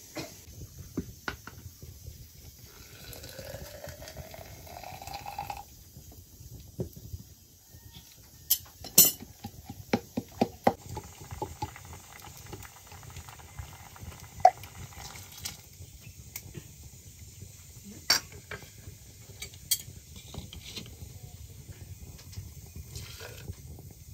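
Scattered clinks and knocks of a cooking pot and utensils, clustered about eight to eleven seconds in, over a steady low background. About three seconds in comes a rising tone that lasts a couple of seconds.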